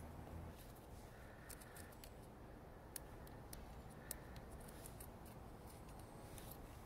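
Faint snip of scissors cutting a calendula stem, then scattered faint clicks and crackles of dry calendula seed heads being picked apart by hand.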